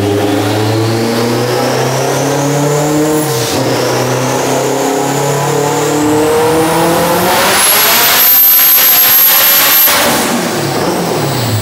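Turbocharged all-wheel-drive Honda Civic hatchback making a full-throttle pull on a chassis dyno. The engine note climbs, dips once about three and a half seconds in, then climbs again with a high whine rising alongside it. It is loudest near the end, then the revs fall away as the pull ends.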